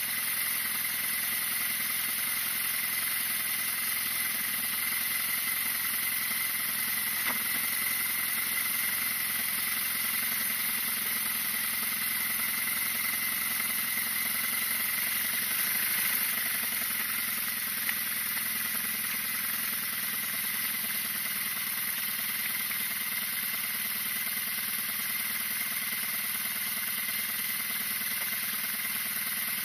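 BMW R nineT's 1170 cc air-cooled flat-twin boxer engine running steadily at low revs, near idle. A steady high-pitched tone and hiss run alongside it.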